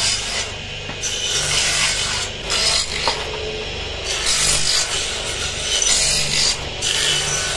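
Small bench circular saw running with a steady motor hum, its blade cutting thin wooden pieces in repeated rasping passes of about half a second to a second each, with a motor-driven sanding disc grinding wood alongside.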